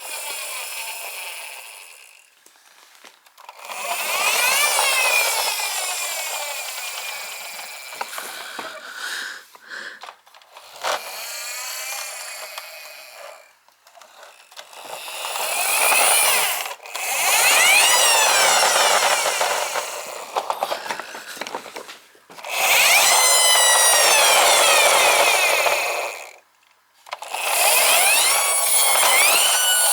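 Toy bus's inertial friction motor whirring and gear-grinding in repeated bursts. Each burst's pitch rises and falls as the flywheel spins up and winds down.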